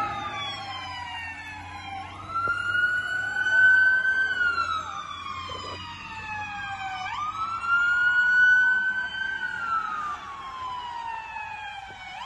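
Fire truck siren wailing. In each cycle the pitch jumps up quickly, holds, then slides slowly down, repeating about every five seconds, loudest near the top of each cycle.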